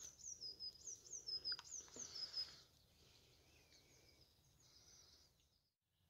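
A small songbird singing a quick series of high, downward-slurred notes, about eight in two and a half seconds, then fainter notes for a few more seconds.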